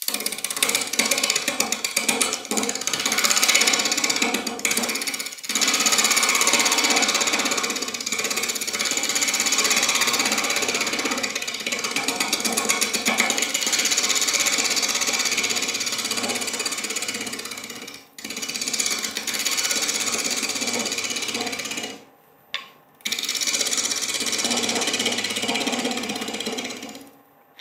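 Hurricane carbide roughing tool scraping the outside of a wooden bowl blank spinning on a lathe at about 1,000 RPM: a loud, fast, rhythmic scraping as the light passes take off wood. It breaks off briefly a few times, with one clear gap about two-thirds of the way through, and stops just before the end.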